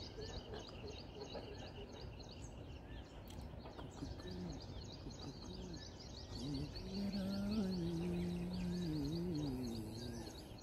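Small birds chirping in a rapid, continuous high series. In the second half a low, wavering pitched call rises and falls for a few seconds and becomes the loudest sound.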